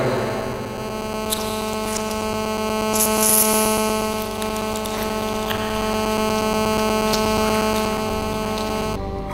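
Background music: a steady droning chord held for several seconds, shifting to a new chord near the end.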